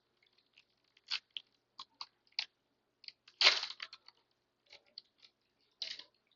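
Foil wrapper of a baseball card pack crinkling and tearing in short crackly bursts as the pack is opened, with the loudest, longest rip about three and a half seconds in.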